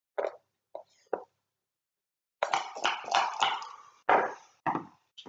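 Backgammon checkers knocked down on a wooden board, three short clacks, then a run of dice clattering and tumbling across the board from a little past two seconds in.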